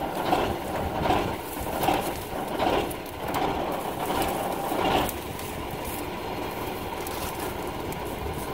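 Tractor engine running steadily in the background, with louder irregular sounds over it in the first five seconds.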